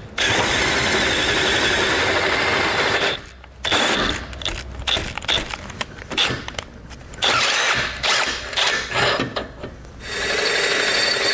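Cordless drill with a half-inch twist bit enlarging a pre-drilled hole in a vehicle's lower bumper beam. It runs steadily, stops briefly about three seconds in, then goes in short stop-start runs before running steadily again near the end.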